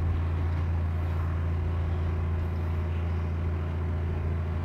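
Small fishing boat's motor running with a steady low drone.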